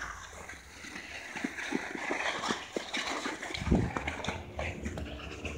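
Footsteps crunching in snow, with scattered rustles and clicks of a handheld phone, and a heavier dull thump about three and a half seconds in.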